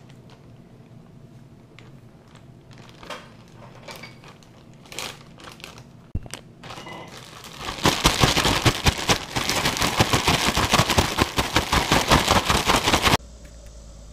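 A clear plastic bag of catfish nuggets and breading shaken hard to coat them: a loud, fast rustling rattle of about five seconds that cuts off suddenly. Before it come lighter crinkles of the bag being handled.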